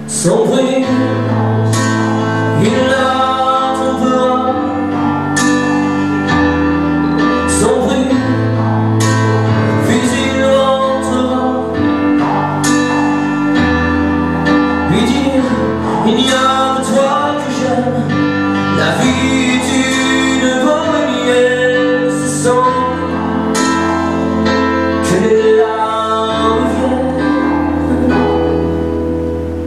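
A man singing into a microphone over music with a sustained bass line and a steady beat.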